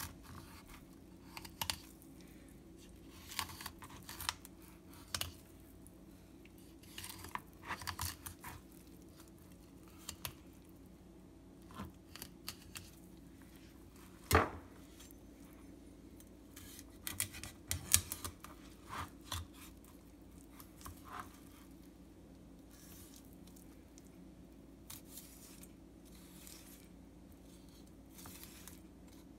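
Knife cutting along the backbone and ribs of a morwong on a wooden cutting board: intermittent short scraping and crunching strokes, with one sharp knock on the board about halfway through. The strokes thin out near the end. A faint steady hum runs underneath.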